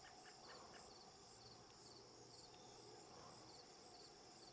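Faint outdoor insect chorus: a steady high-pitched chirring with a short chirp repeating about every half second.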